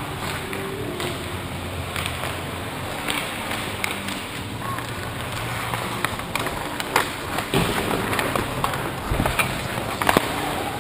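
Ice hockey play on the rink: skate blades scraping the ice, with sharp knocks of sticks and puck, the loudest about seven and ten seconds in.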